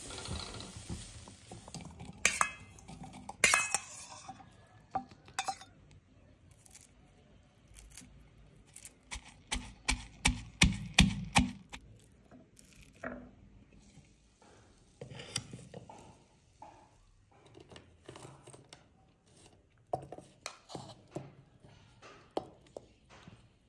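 Cooking utensils knocking and clinking: a wooden spatula against a wok and a spoon against a glass bowl. The sound comes as scattered sharp clinks, with a quick run of about eight taps near the middle.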